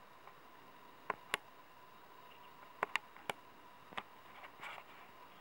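Handling noise from a handheld camera: about six small, sharp clicks, two quick pairs and then single ticks, over a faint steady hum.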